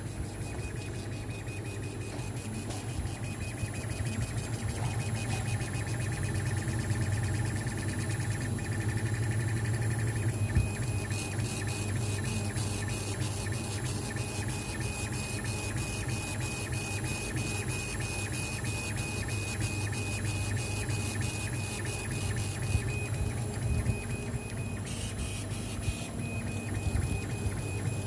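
Kamach 6090 CO2 laser engraver at work: the stepper-driven head whines as it moves, and from about a third of the way in it makes a rapid, even ticking as it scans back and forth. A steady low hum runs underneath.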